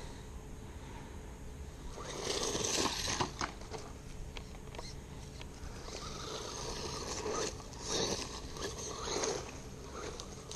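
Exceed RC Magnet 1/16-scale electric truck with an RC380 brushed motor driving over dirt and grass: tyres scraping and crunching in bursts, loudest about two to three seconds in and again from about seven to nine seconds. A faint motor whine comes through during the later burst.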